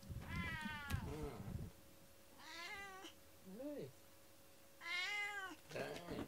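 Domestic cat meowing over and over: three longer meows that fall in pitch, about two seconds apart, with shorter calls between them. These are attention-seeking, affectionate meows.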